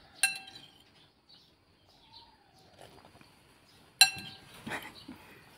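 Metal spoon clinking against a ceramic bowl: a sharp ringing clink just after the start and a louder one about four seconds in, followed by a few lighter taps and scrapes.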